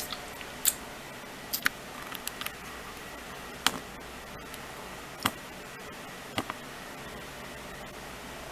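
Steady background hiss with about ten short, sharp clicks and ticks at irregular intervals, a few of them in quick pairs.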